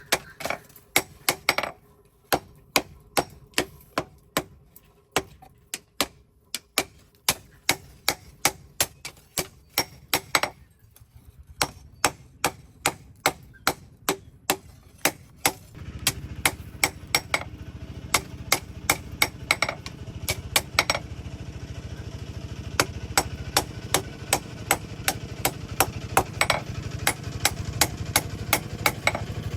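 Hammer blows on steel, struck at a steady pace of about two or three a second with a short pause partway through, as a knife blade is forged. About halfway in, a steady low hum from a running machine joins the hammering.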